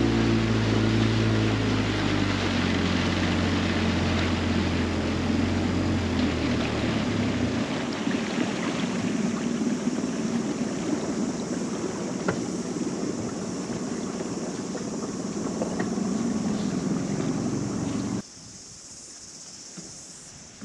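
Small outboard motor pushing an inflatable dinghy, a steady hum that drops away about seven seconds in, leaving the rush of water and wind as the boat glides on. Near the end the sound falls abruptly to a much quieter outdoor background.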